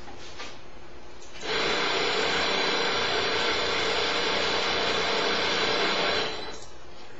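Backpack-powered portable sander with a disc pad running steadily against a surface for about five seconds, starting about a second and a half in and stopping near the end.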